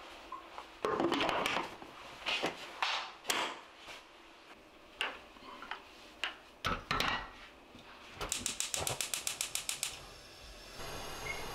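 Pressure cooker lid knocking and clattering as it is set and locked onto the metal pot, then a gas stove's igniter ticking rapidly, about nine clicks a second, for a second and a half, and the burner catching near the end with a steady hiss of gas.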